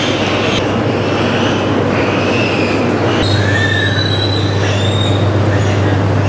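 Pigs squealing in high, drawn-out cries over a loud, steady mechanical hum and noise in a pig shed. The background changes abruptly about three seconds in.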